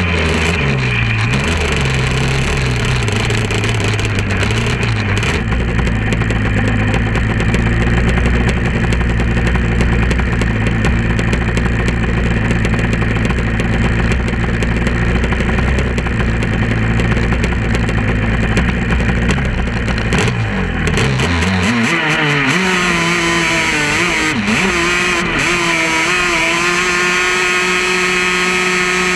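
Off-road vehicle engine running hard while climbing a sand dune. Its pitch drops at the start, holds steady, then settles onto a higher steady note about three-quarters of the way through.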